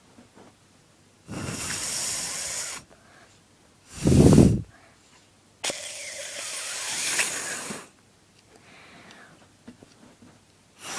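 Breath blown hard through a flattened drinking-straw reed that fails to sound: two long breathy hisses, with a short, loud puff of breath between them.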